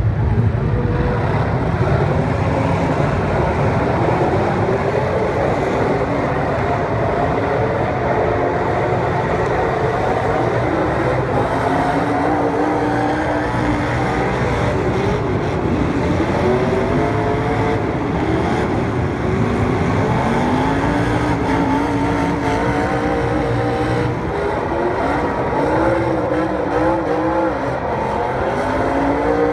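Several racing engines running together as a field of cars laps a track, their pitches repeatedly rising and falling as they rev down the straights and ease off into the turns.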